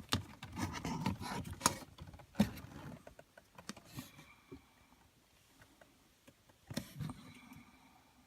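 Handling noises: scattered clicks and knocks, busiest in the first three seconds, then a quieter stretch and a single louder knock about seven seconds in.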